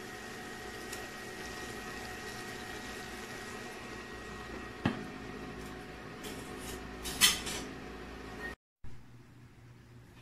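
Metal tongs and a glass lid clinking against a non-stick frying pan as shrimp sizzle in butter, with a sharp tap about five seconds in and the loudest clatter about seven seconds in. Underneath is a steady electric cooktop hum with a faint high whine.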